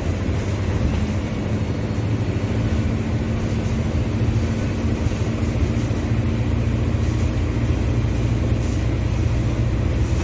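Mercedes-Benz OF-1721 Bluetec 5 bus's four-cylinder turbodiesel engine running at a steady speed, a continuous low drone with a faint steady hum above it.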